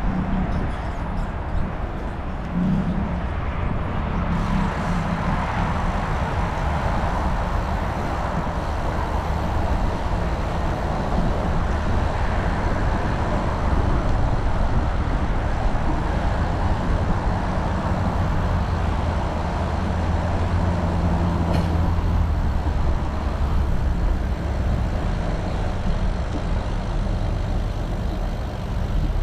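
Steady road traffic noise from passing motor vehicles, with a continuous low rumble. An engine's hum grows stronger about two-thirds of the way through.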